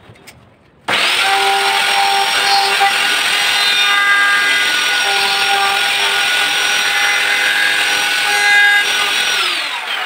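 Electric wood router switched on about a second in, running at high speed as it cuts a lock slot into the edge of a wooden door; it is switched off near the end and its whine falls in pitch as it spins down.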